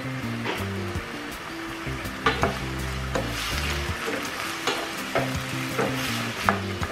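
Diced potatoes and carrots sizzling in hot oil in a pan while a spatula stirs them, scraping and knocking against the pan several times.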